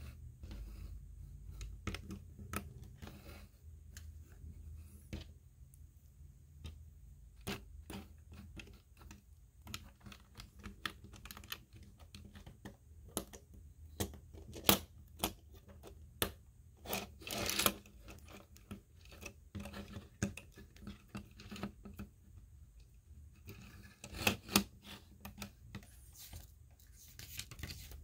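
Plastic Lego pieces being handled and pressed together: irregular light clicks and rattles, with a few louder snaps midway and near the end.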